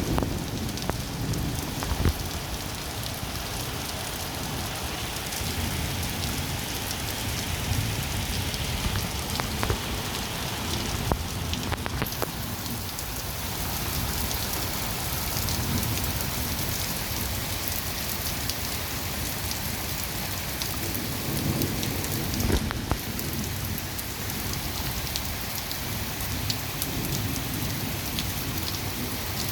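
Heavy rain falling steadily in a thunderstorm, with scattered sharp clicks of drops striking a hard surface.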